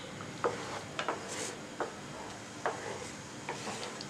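Wooden spatula stirring a thick milk and cornflour pudding mixture in a pan, knocking against the pan's side and bottom in irregular taps, about six or seven of them, over a faint steady hiss.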